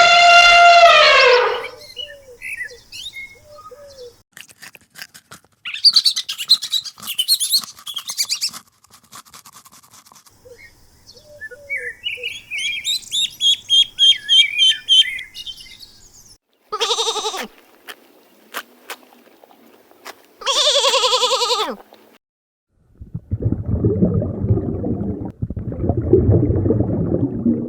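A string of separate animal calls: a loud call falling in pitch at the start, bird chirping and twittering, two short pitched calls, then a low, rough rumbling sound near the end.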